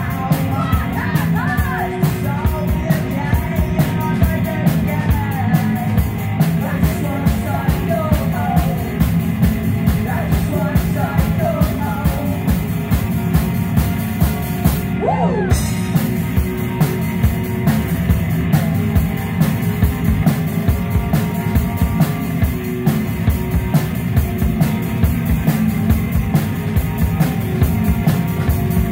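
Live rock band playing: electric guitar and drum kit with a steady beat, and a singer's vocals in places.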